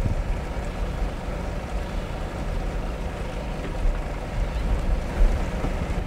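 A fishing boat's engine running steadily: a low rumble with a faint hum above it.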